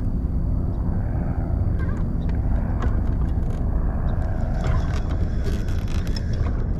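Bow-mounted electric trolling motor running with a steady low hum, with a few light clicks of fishing tackle.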